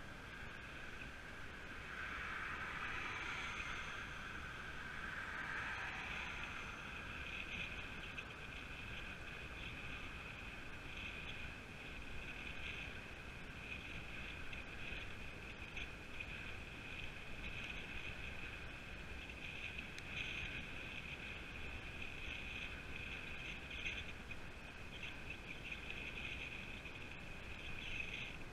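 Steady riding noise of a road bike on a tarmac path: tyre and drivetrain noise with a flickering high hum, which swells briefly about two to six seconds in.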